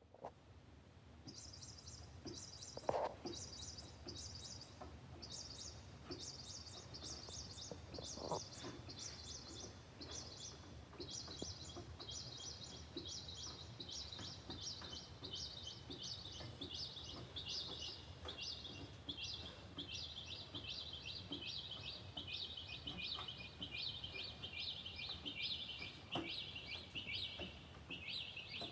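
A bird chirping rapidly and continuously in runs of quick high notes that slowly drop in pitch, with two brief lower calls about three and eight seconds in.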